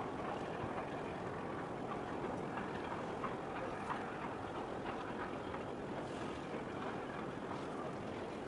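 Steady outdoor background noise, an even wash with a few faint ticks scattered through it.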